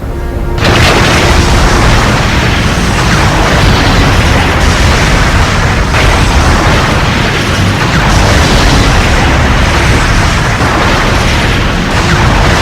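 Movie sound effects of explosions and booming destruction, a dense rumble that starts suddenly about half a second in and runs on at full level, mixed with music.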